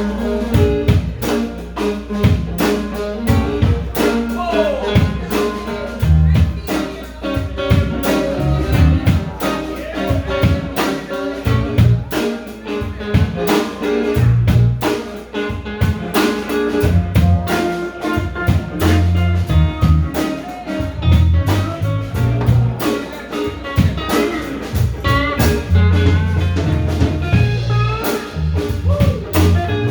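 Blues band playing an instrumental passage: guitar lines over bass and a steady drum beat.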